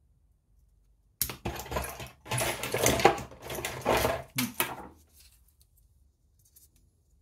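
Small parts being handled on a wooden workbench: a run of clattering knocks and rustles starting about a second in and lasting nearly four seconds, then a few faint ticks.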